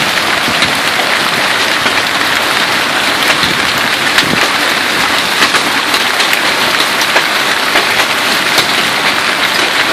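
Hail pelting down hard: a dense, steady clatter of hailstones with many sharp cracks of individual stones striking.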